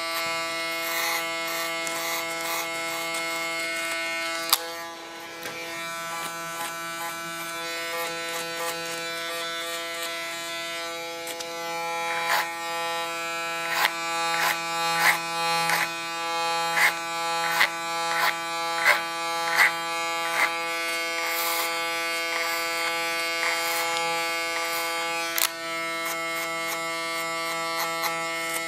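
Electric hair clipper buzzing steadily as it cuts very short hair on the back of the neck and sides. From about twelve to twenty seconds in comes a run of short sharp clicks, irregularly spaced about half a second to a second apart, as the clipper works over a comb.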